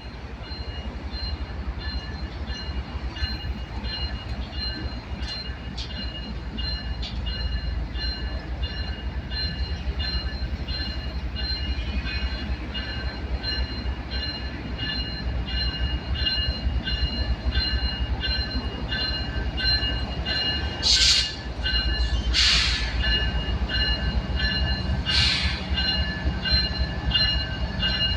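Freight train rolling past: the cars' wheels rumble on the rails with a high, pulsing wheel squeal. Three short, loud hissing bursts come near the end.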